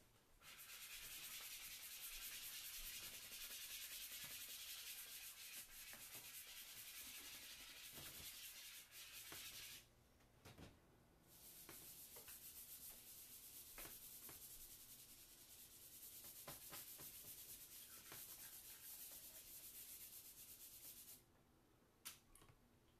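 Charcoal rubbed back and forth across Bristol paper by hand, a faint steady scratchy hiss in two long stretches with a short pause about ten seconds in.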